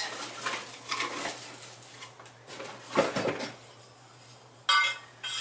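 Metal suspension brackets for front airbags being handled out of their box: scattered knocks and rustles, then a bright ringing metal clank near the end as the pieces knock together.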